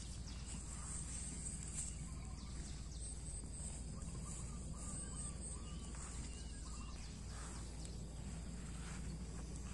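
Faint outdoor farmyard ambience: a steady high insect drone with a few short bird chirps in the middle, over a low steady hum.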